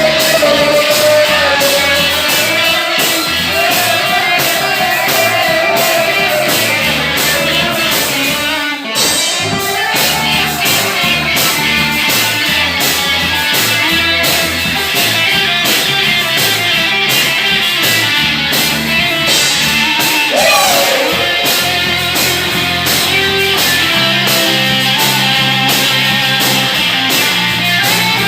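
Rock band playing live: singing over electric guitar and bass with a steady beat. The music drops out for a moment just before the middle.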